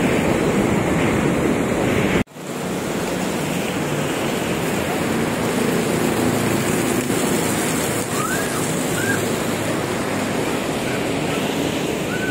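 Fast mountain river rushing below a footbridge, a steady loud noise of churning water mixed with wind on the microphone. It breaks off for an instant about two seconds in.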